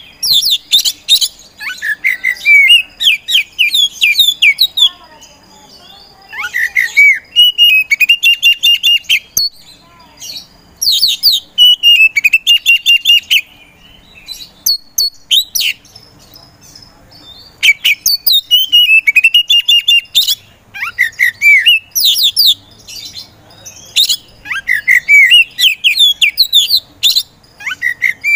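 Caged oriental magpie-robin (kacer poci) singing loudly: fast runs of chirps and sweeping whistled notes in varied phrases, broken by short pauses.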